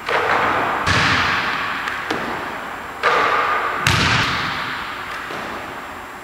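Basketball thudding on the rim and the hardwood court, echoing through the empty gym: two hits close together near the start and two more about three seconds in, each ringing out slowly.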